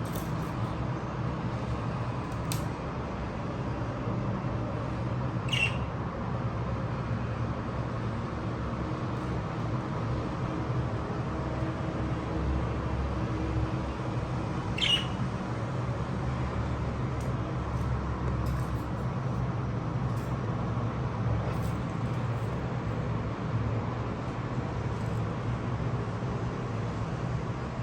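A budgerigar gives two short, sharp chirps about ten seconds apart over a steady low hum.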